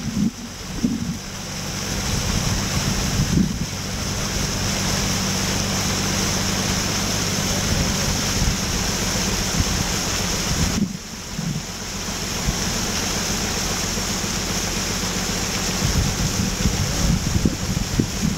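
Motorboat engine running steadily, with a broad rush of wind and water over it. The sound dips briefly about eleven seconds in.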